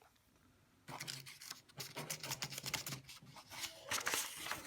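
Quick run of small clicks and scraping from a washing machine's rotary programme dial being turned by hand through its settings. It starts about a second in and goes on unevenly.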